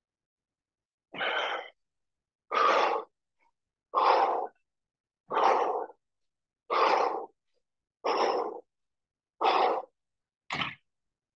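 A man's forceful exhalations, one with each rep of bent-over dumbbell rows: about eight half-second breaths in a steady rhythm, roughly one every second and a half, with two shorter ones near the end.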